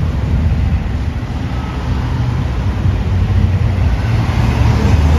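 Road traffic: cars driving past close by, a steady low engine and tyre rumble that grows a little louder near the end.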